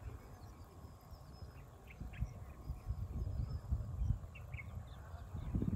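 Birds chirping in short, scattered calls, a few at a time, over a low uneven rumble that grows stronger from about two seconds in.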